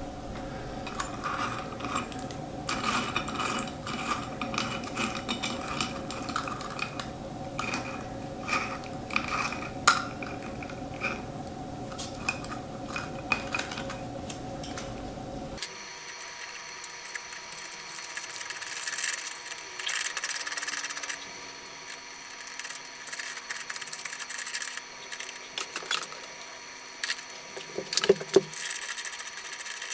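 Light clicks, clinks and rubbing as hands screw a shade ring and fittings onto a plastic pendant lamp socket, over a faint steady hum that changes abruptly about halfway through.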